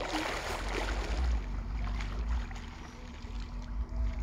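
Pool water splashing and sloshing under a swimmer's arm strokes, loudest in about the first second and softer after, over a low steady rumble.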